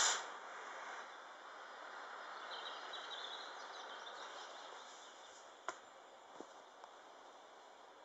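Enola Gaye wire-pull smoke grenade, just ignited, hissing as it pours out smoke: a loud burst that dies away right at the start, then a steady softer hiss that fades slowly. A couple of faint clicks near the end.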